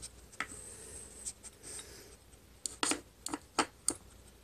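Sliding discs of a Nina Ottosson Dog Turbo wooden puzzle scraping and knocking in their grooves as a small dog pushes at them with its nose, with a quick run of sharp clicks near the end.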